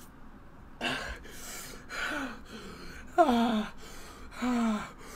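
A man gasping and moaning in distress: about four heavy breaths, most with a falling voiced groan, from the burning of the One Chip Challenge's super-hot chip.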